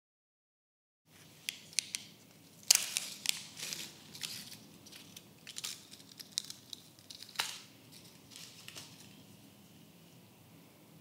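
Gloved hands tearing open and crinkling the clear plastic packet of a sterile dry-needling needle: a run of sharp crackles and tearing sounds starting about a second in. It is loudest about a quarter of the way through and again about two-thirds through, then thins out near the end.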